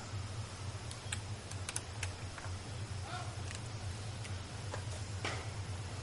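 A steady low hum with scattered sharp ticks and clicks, about ten of them, irregularly spaced.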